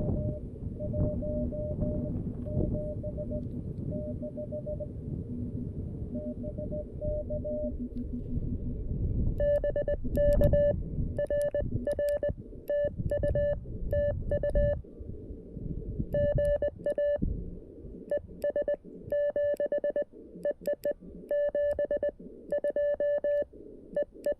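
Morse code from a CFT-1 QRP transceiver. For about the first nine seconds a fainter keyed tone is heard through receiver hiss. Then a louder, sharper keyed sidetone comes in with clicks from the 3D-printed key, as the operator sends.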